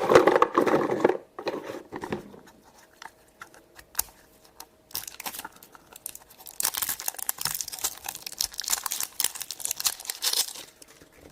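Blind-bag toy packaging being torn open and crinkled by hand, with a loud rustle at the start, scattered small clicks and rustles, then several seconds of dense crackling crinkle.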